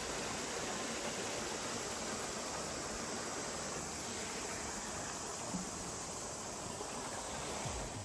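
Steady, even rush of falling water from a waterfall.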